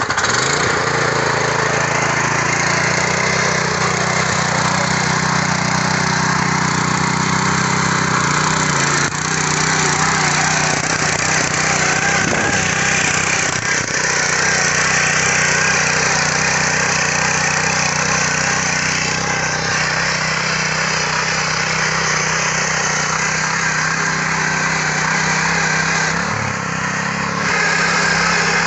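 Small air-cooled engine of a walk-behind rotary power tiller running steadily just after being pull-started, working its blades through soil. Its note shifts once about nine seconds in and dips briefly near the end.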